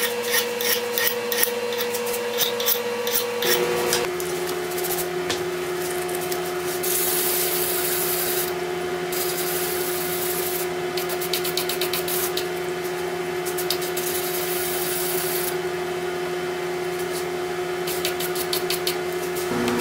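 Hand file scraping across a steel axe head in quick, even strokes. After a cut near four seconds in, sandpaper is rubbed rapidly back and forth over the steel, over a steady faint hum.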